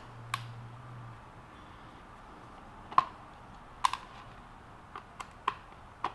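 Light, scattered clicks and taps, about seven in all, of a small screwdriver and tiny screws on a plastic tray and a small plastic sensor case, as the case's cover screws are backed out and set down.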